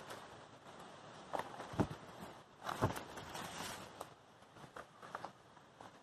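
Footsteps on dry leaf litter and twigs of a forest floor: irregular steps with crackling leaves, the heaviest few about a second and a half to three seconds in.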